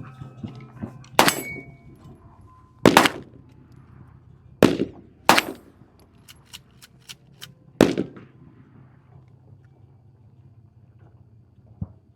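Five close, loud gunshots, spaced irregularly over about seven seconds, with a few fainter sharp cracks among them.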